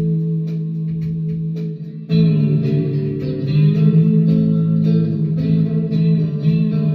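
Electric guitar with '57/'62 Fender-style pickups played with a slide in the key of A: sustained ringing notes picked steadily, with a short drop about two seconds in before a strong new attack.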